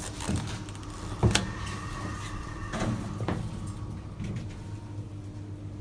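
Hydraulic passenger elevator at the start of a run. The car's sliding doors close with a few sharp clunks over the steady hum of the hydraulic pump motor. A thin high tone is heard for about a second in the middle.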